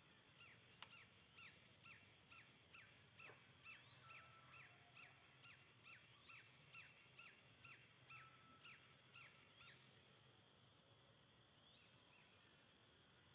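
A bird calling a long run of short, falling notes, about two a second, that stops about ten seconds in. The calls are faint, over a steady background of insects.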